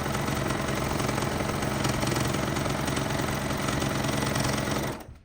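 Sewing machine running steadily at speed, stitching, then stopping abruptly near the end.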